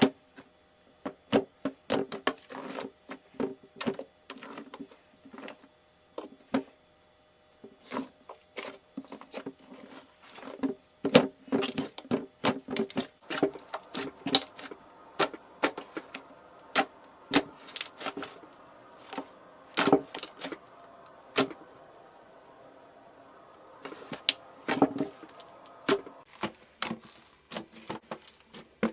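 Crushing and squeezing by hand: an irregular run of sharp crackles, snaps and clicks, with a brief quieter, sparser stretch near the end.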